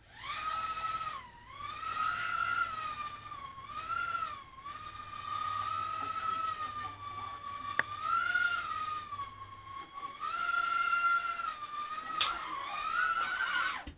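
Ultra micro quadcopter's motors and propellers whining in flight, the pitch wavering up and down with the throttle. It spins up at the start and cuts out near the end, with a sharp tap about eight seconds in and a knock about twelve seconds in.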